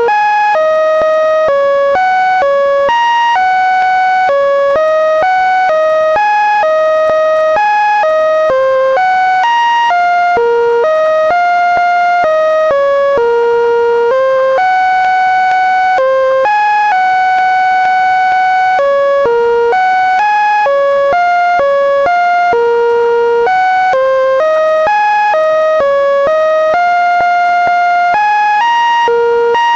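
Synthesized electronic tones stepping from pitch to pitch in an unmelodic sequence, about two notes a second with some held for a second or more, generated by a command that turns Linux kernel data into sound.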